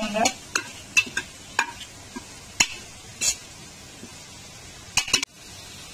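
A utensil stirring a tomato, onion and mint masala frying in ghee in a pressure cooker: irregular scrapes and knocks against the pot, a quick flurry of strokes about five seconds in, over a faint steady sizzle.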